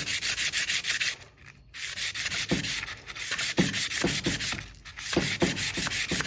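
Hand sanding of a motorcycle's steel front-fork shaft, rapid back-and-forth rubbing strokes at about three a second, with two short pauses. The shaft is being smoothed so the fork internals will slide off it.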